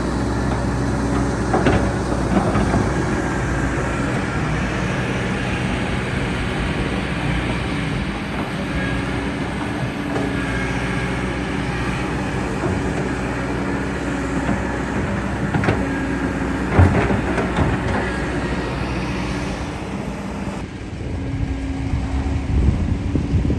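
Heavy diesel engine of a working excavator running steadily, with a few sharp knocks, the loudest about 17 seconds in.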